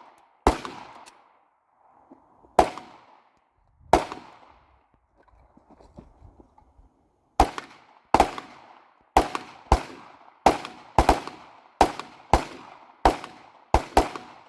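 Single gunshots, each with a trailing echo: three well-spaced shots in the first four seconds, a lull of about three seconds, then a steady string of shots about two a second. This is covering fire while a partner reloads, then sustained fire from the team.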